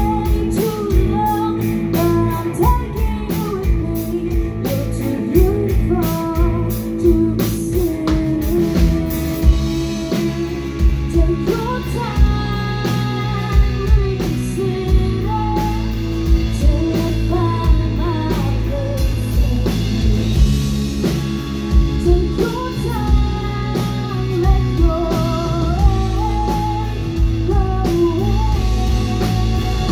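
Rock band playing live: guitars, bass and drum kit under a wavering melody line.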